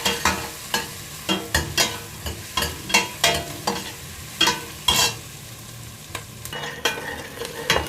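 Onion and garlic sautéing in hot oil in a pan, sizzling steadily, while a spatula scrapes and knocks against the pan in quick, irregular strokes as they are stirred. The garlic and onion are beginning to burn.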